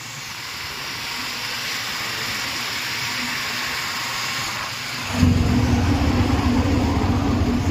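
Riding in an auto-rickshaw: a steady hiss of wind and road noise. About five seconds in, the auto-rickshaw's engine comes in suddenly and loud with a low, steady drone.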